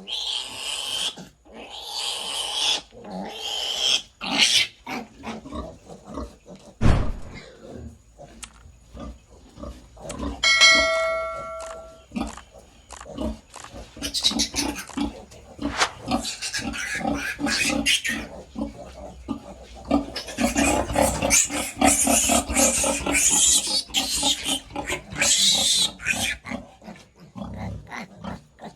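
A piglet squealing and screaming in repeated loud, high-pitched bursts while it is handled for tail docking and teeth clipping, with long squeals near the middle and toward the end. A single thump about seven seconds in and a short ringing tone about ten seconds in.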